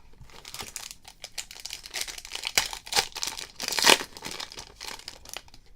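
The wrapper of a 2016 Topps Holiday baseball card pack being crinkled and torn open by hand: a run of crackling with a few louder rips about three to four seconds in.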